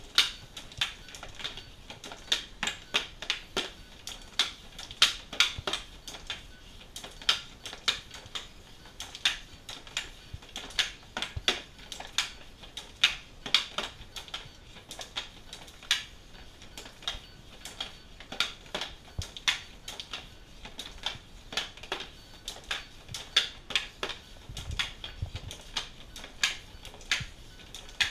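Hockey puck and stick blade clacking on a SuperDeker stickhandling trainer pad: rapid, uneven clicks, a few every second, as the puck is stickhandled back and forth.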